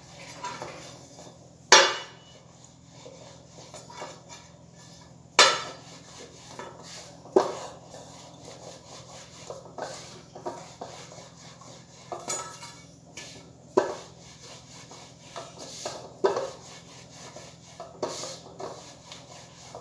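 Rolling pin rolling out a small ball of pastry dough, with quiet rubbing and a sharp knock every couple of seconds as the pin strikes the work surface.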